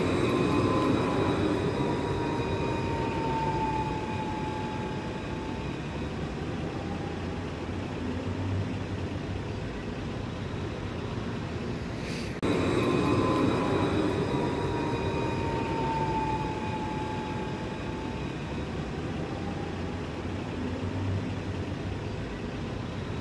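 An Alstom Citadis low-floor tram passing close by and rolling away: a steady rail rumble that slowly fades, with a whine that falls in pitch. About halfway through, the same pass starts again at full loudness.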